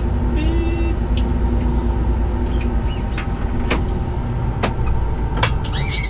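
Combine harvester engine running steadily, heard from inside the cab, with scattered clicks. There is a short high chirp about half a second in and a brief high-pitched squeal near the end.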